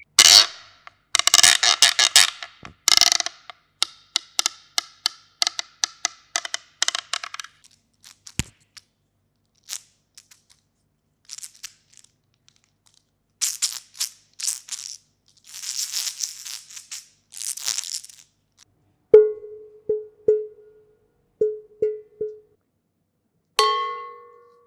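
A string of short percussive sound effects: rapid clicks and taps at first, then a few hissing rustles, five short hollow knocks of one pitch, and a ringing strike near the end.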